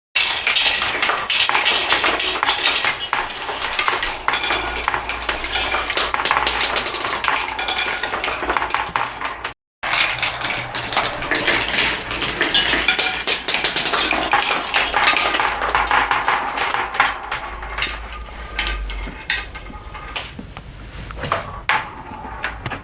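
Many marbles rolling and clattering down a marble run, a dense stream of clicks and clacks. The sound cuts out for a moment about ten seconds in, then resumes and thins out toward the end.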